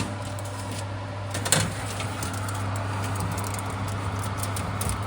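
Oven running with a steady low hum, with a single sharp clank about a second and a half in.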